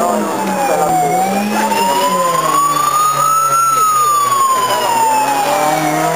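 Vehicle siren wailing: one tone dips, climbs slowly for about two and a half seconds, then falls again, over a steady low engine drone.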